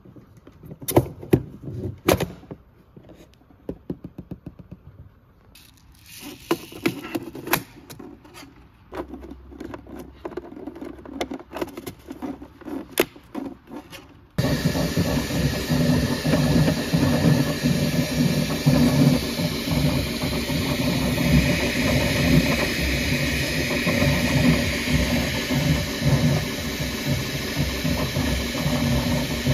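Sharp plastic clicks and rattles as parts are handled and fitted in a Bambu Lab AMS filament unit. About halfway these give way suddenly to a steady, loud mechanical whir and hiss of a running 3D printer.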